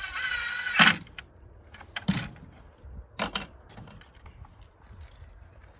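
A power driver briefly whines as it runs a small hinge screw home into a wooden coop door, ending in a sharp click just under a second in. Two sharp knocks of tool and hardware handling follow.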